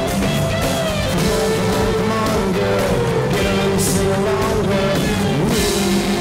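Live country-rock band playing: electric and acoustic guitars, bass guitar and a drum kit, with cymbal crashes about four seconds in and again near the end.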